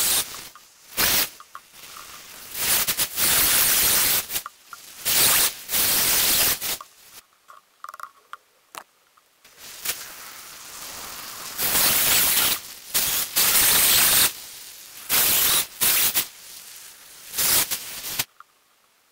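Petrol chainsaw carving a fresh pine log, the throttle opened in repeated bursts of a second or so with quieter gaps between. It sounds like a harsh hiss and cuts off abruptly near the end.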